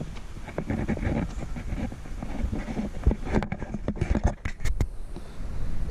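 Footsteps on the wooden sleepers and track of an old railway bridge: irregular knocks and scrapes, thickest a few seconds in, over a low rumble of wind on the camera microphone.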